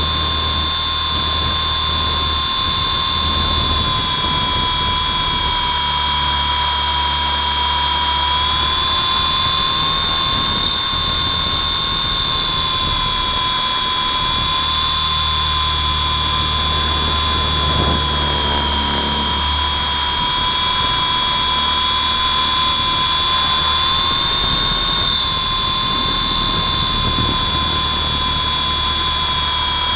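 Electric motor whine and rotor hum of a WLToys V912 RC helicopter, recorded from a camera mounted on it, in steady flight. The high whine wavers slightly in pitch a few times as the throttle changes, over a low rotor hum that swells and fades.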